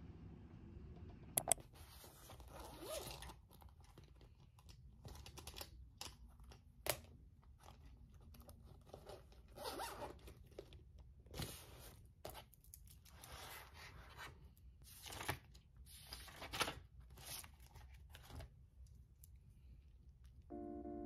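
Zipper of a fabric pencil pouch being pulled and the pouch and its contents handled, in a string of short scratchy strokes with a few sharper clicks.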